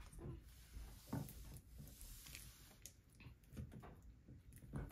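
Faint, irregular squelches and soft taps of a silicone spatula stirring sticky glitter slime in a glass bowl, mixing in the activator.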